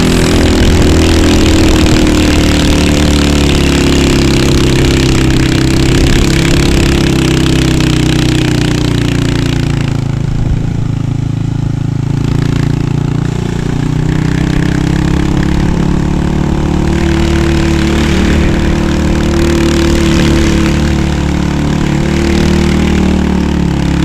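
Motorcycle engine running under way, its note dropping as the bike slows about halfway through, then picking up again and easing off near the end, with wind rushing over the microphone.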